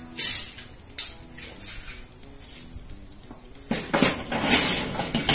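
Steel cooking grate clanking against the rim of a charcoal kettle grill as it is set in place over the coals: two sharp clanks about a second apart, then a longer metallic rattle near the end.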